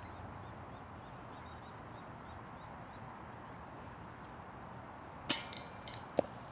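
A disc golf disc hitting the chains of a metal basket about five seconds in: a sharp metallic clash with the chains ringing for about half a second.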